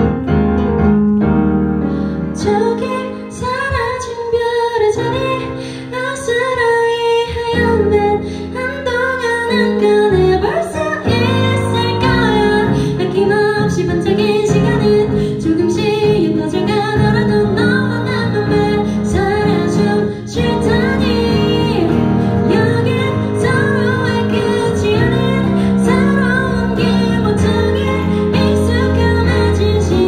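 A woman singing a Korean pop ballad live into a microphone, accompanying herself with sustained piano chords on a Kurzweil stage piano.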